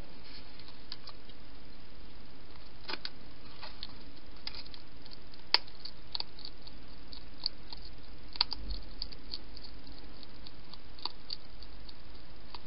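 Hedgehog eating from a dish: irregular small clicks of chewing, a few sharper than the rest, over a steady hiss.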